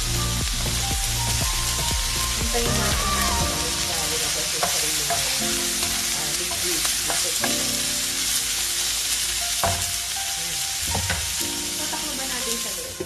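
Shredded cabbage, carrots and chicken sizzling in a hot wok as they are stir-fried, with the knocks and scrapes of a spatula against the pan. The sizzle drops away at the very end.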